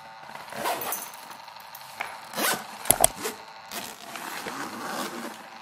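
Zipper on a black fabric suitcase being pulled along in several rasping strokes, with two sharp clicks about three seconds in.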